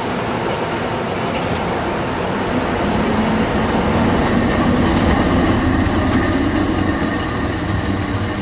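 Train running noise: a steady rail rumble with a low hum that swells a little between about three and six seconds in.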